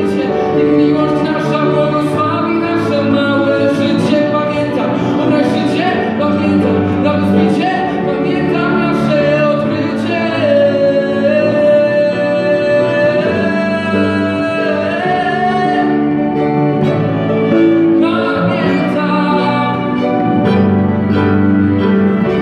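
Live band of violin, cello, electric guitar and grand piano playing a song, with a man singing over it; a few long held notes come in the middle.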